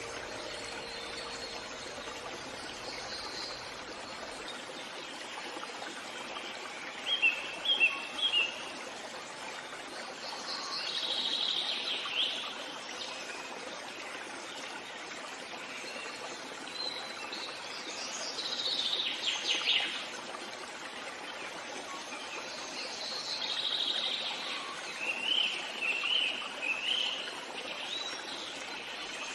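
Forest ambience: several birds singing in short phrases of chirps and trills every few seconds over a steady background hiss.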